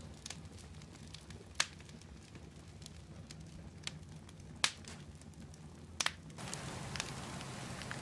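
Wood fire embers crackling, with a few sharp, separate pops over a low steady noise. About six seconds in, a louder steady hiss sets in, full of smaller, quicker crackles.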